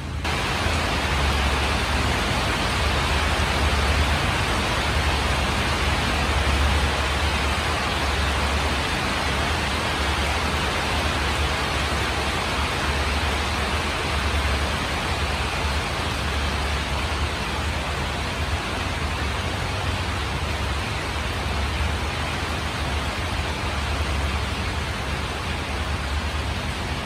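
Steady rain falling on leaves and surrounding surfaces, an even hiss, with a low uneven rumble underneath.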